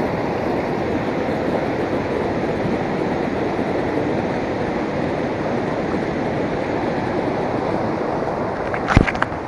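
Shallow rocky stream rushing steadily over stones. About nine seconds in, a short cluster of sharp knocks with a dull thud.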